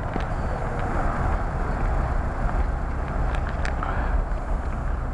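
Wind buffeting the microphone: a steady rumbling hiss, heaviest in the low end, with a few faint ticks.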